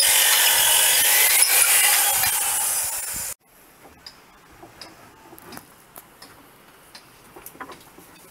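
Electric hand drill boring a dowel hole down into the edge of a wooden hull plank, running steadily with a high whine and easing off slightly before it stops abruptly about three seconds in. After that there are only faint light knocks and ticks.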